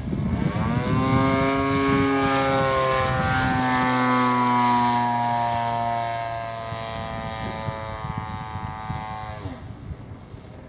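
The single-cylinder two-stroke gasoline engine of a giant-scale RC plane, a Zenoah G38 turning a 20x8 propeller, running at high power in flight. Its pitch climbs in the first second, holds high while sagging slowly, then falls sharply about nine and a half seconds in as the sound fades.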